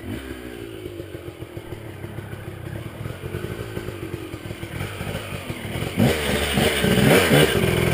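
Four-stroke enduro motorcycle engines running at low revs on a dirt trail descent, getting steadily louder; about six seconds in they get louder, with the revs rising and falling as the throttle is blipped.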